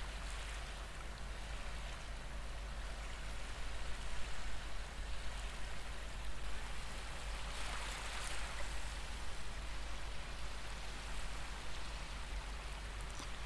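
Recorded ocean waves washing ashore: a steady hiss that swells louder about four seconds in and again around eight seconds.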